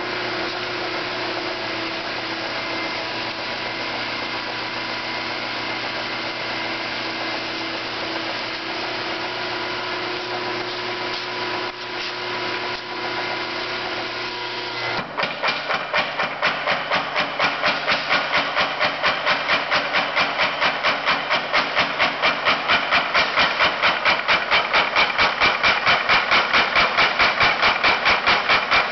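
50 lb Little Giant power hammer: its belt-drive electric motor runs with a steady hum, then about halfway through the ram starts striking a bar of hot 2-inch round stock in rapid, even blows, drawing it out.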